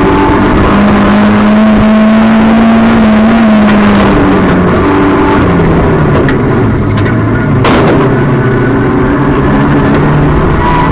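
Small speedway race car's engine running hard, heard from inside the cockpit. The pitch holds high, drops about four seconds in as the car eases off for a turn, then climbs again near the end. A single sharp knock comes about two-thirds of the way through.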